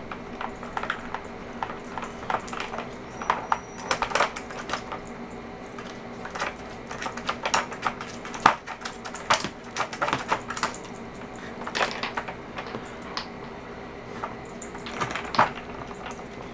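Plastic dog puzzle toy clicking and knocking irregularly as a puppy noses and paws at its pieces, working at the bone that locks the sliding segments.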